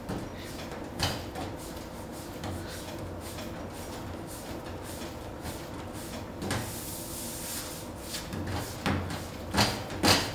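Gingerbread dough being kneaded by hand on a stainless steel worktop: soft rubbing and pressing with scattered knocks, several close together near the end. A faint steady hum sits underneath.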